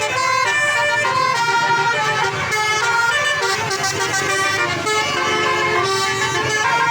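Bus's Basuri musical 'telolet' horn playing a tune of stepped notes, over a low steady rumble.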